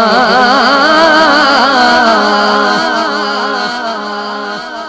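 A male singer's voice sustains one long note of Punjabi kalam, ornamented with heavy wavering runs, over a steady low drone. After about three seconds the ornaments settle into held tones and the sound slowly fades.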